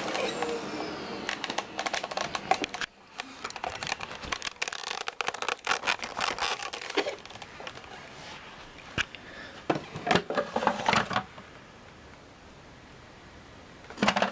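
Kenmore Whispertone 300 canister vacuum's motor spinning down after being switched off, its whine falling away in the first second or so. Then about ten seconds of irregular clicks and knocks, as of parts being handled, before it goes quiet.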